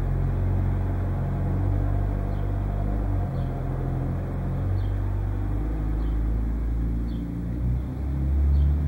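Porsche 996 Turbo's twin-turbo flat-six idling through a Kline exhaust on its first start-up after a Stage 2 turbo and exhaust install. The idle note shifts a few times and grows louder near the end.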